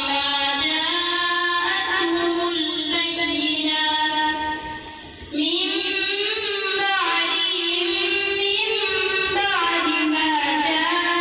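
A boy reciting the Quran (tilawat) in a melodic, drawn-out chant into a microphone, holding long notes that glide up and down. He pauses for breath a little past four seconds in, then resumes.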